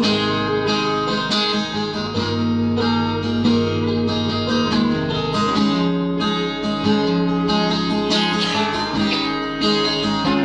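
Music: a guitar-led instrumental passage of a country-pop love ballad between sung lines.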